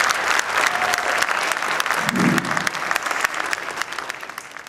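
Audience applauding a stage performance, dense clapping that fades out near the end.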